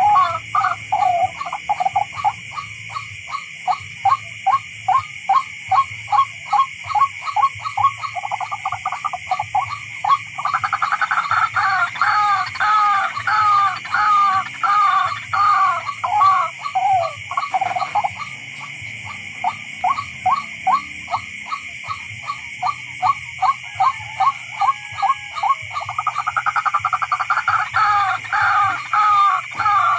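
Tikling (barred rail) calling: a long, rhythmic series of rasping notes, several a second. The notes turn into louder, down-slurred doubled phrases about ten seconds in and again near the end.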